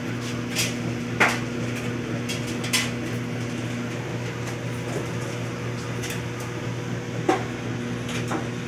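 Steady low electrical hum, as from a running household appliance, with a few sharp knocks and clicks; the loudest knocks come about a second in and near the end.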